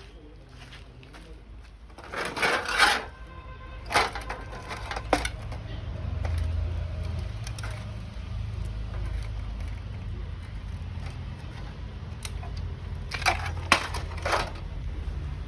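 Hard objects being handled: a few clattering, clinking knocks, some with a brief metallic ring, in two clusters, one in the first five seconds and one near the end, over a low steady rumble.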